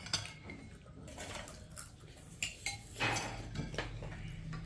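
Metal spoons clinking and tapping against ceramic bowls as tamarind water is spooned into panipuri shells: scattered light clinks, some with a short ring, and a brief crackling noise about three seconds in.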